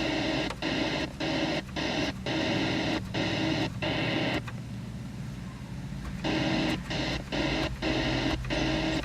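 Buzzing electronic tone from a radio transceiver, keyed on and off in short irregular pulses of about two a second, with a pause of roughly two seconds midway, over a steady low hum.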